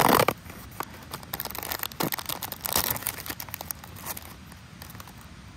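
Plastic wrapper being torn open and crinkled by hand: a loud tearing burst at the start, then a run of short crackling rustles for a couple of seconds, thinning to a few faint ones near the end.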